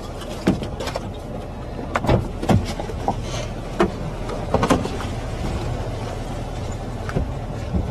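Wind on the microphone: a steady low rumble broken by several short thumps and knocks from gusts.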